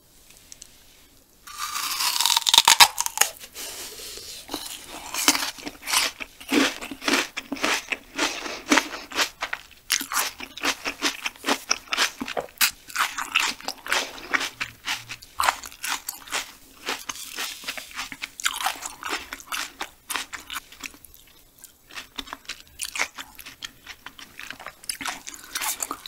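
Close-miked biting and chewing of raw banana stem core: crisp, wet crunching that starts about a second and a half in and goes on as a fast run of crackles.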